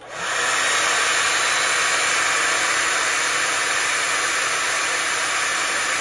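Electric hot-air blower switching on and coming up to a steady rushing blow within about half a second, with a faint motor hum underneath. It is blowing heat onto a lithium battery's temperature sensor to trip the battery management system's high-temperature charge protection.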